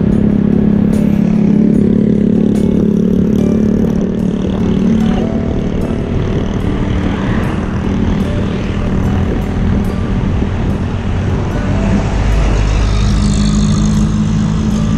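Motorbike engine running steadily while riding at road speed, with wind rumbling on the microphone; the rumble grows stronger near the end.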